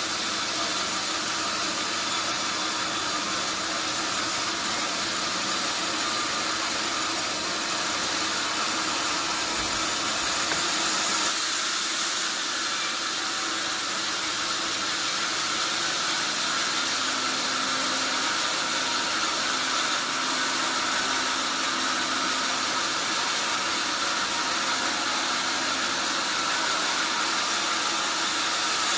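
Steady hissing noise of sawmill machinery running without a break, with a faint low hum joining about halfway through.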